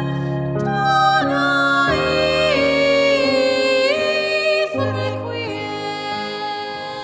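Classical soprano singing long held notes with vibrato over instrumental accompaniment, the melody moving to new notes about a second in, again near the two-second mark and just before five seconds.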